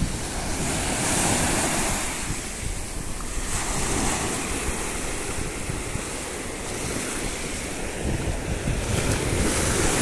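Sea surf washing up a shallow sandy shore: the hiss of breaking waves and foam swells and fades every few seconds, over a low rumble of wind buffeting the microphone.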